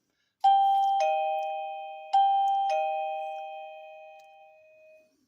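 Two-tone doorbell chime rung twice, about half a second in and again about two seconds in. Each ring is a higher note followed by a lower one, and the notes ring on and fade slowly.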